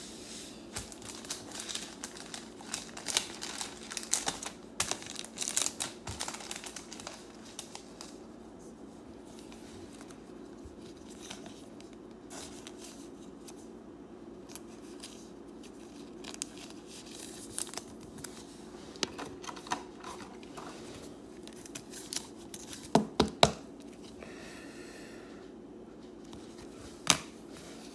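Thin plastic card sleeve and hard plastic card holder crinkling and rustling as a baseball relic card is slid into them. Handling is busiest in the first third, quieter after, then a pair of sharp plastic clicks about three-quarters through and one more near the end.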